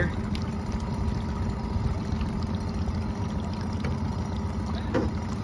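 Boat outboard motor idling steadily, with water lapping against the hull.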